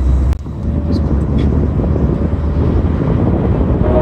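Steady low road and engine rumble of a moving car, heard from inside the cabin, with one sharp click about a third of a second in.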